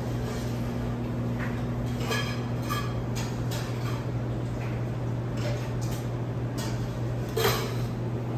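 Shop room tone: a steady low hum with scattered clinks and knocks of dishes and utensils, the loudest knock near the end.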